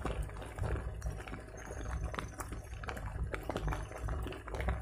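Wind buffeting the microphone as a steady low rumble, with many scattered light ticks and taps.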